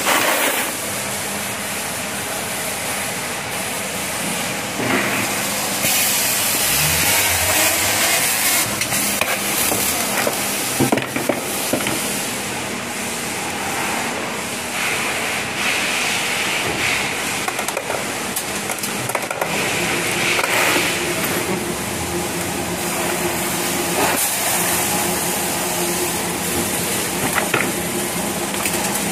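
Broken-glass sorting machine running: a steady hiss over a low motor hum, with a few sharp clicks and clatters now and then.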